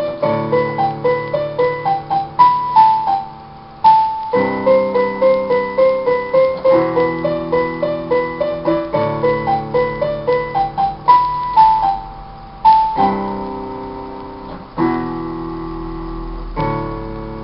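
Portable electronic keyboard played with a piano voice: a quick melody of short, evenly spaced notes in the right hand over held chords in the left, taken a little fast for the song. A few times the melody stops and a chord rings out and fades before the notes start again.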